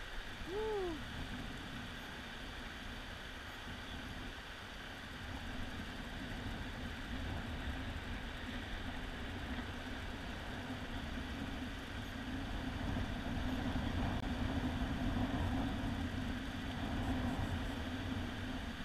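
Shallow river running over rocks and riffles, a steady rushing that grows somewhat louder in the second half. About half a second in, a short tone rises and then falls once.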